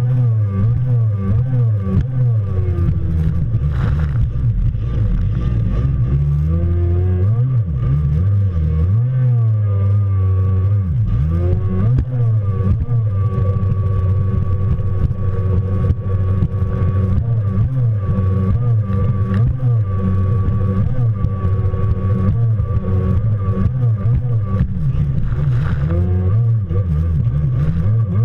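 Kawasaki stand-up Jet Ski's two-stroke engine running at speed, its pitch rising and falling over and over as the throttle is worked, with a steady high whine under it.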